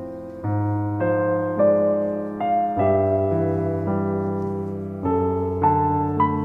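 Background piano music: slow, gentle sustained chords, with new notes struck about every half second to second.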